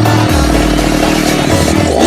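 43 cc two-stroke brush cutter engine running at a steady speed, heard under background music with a heavy bass beat.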